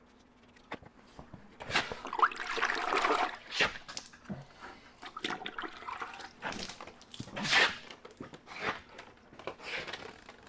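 Water being put onto a clear-coated car body panel to wet it for wet sanding, heard as several separate splashy, hissing bursts.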